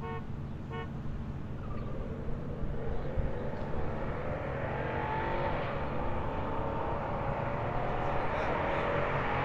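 Two short car-horn toots in the first second, then two GM V8s, an LS1 and an LT1, accelerating hard side by side. Their engine notes climb in pitch and grow louder as the cars come closer.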